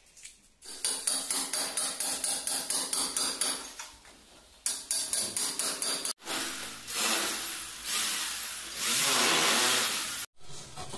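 Hammer and chisel chipping into the wall plaster: rapid strikes, several a second, with a short pause. After a cut, a handheld electric power tool runs against the wall for about four seconds, its pitch rising and falling.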